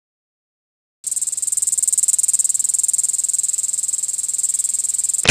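Insect chirring: a high, rapidly pulsing trill that starts abruptly about a second in and stops suddenly at the end.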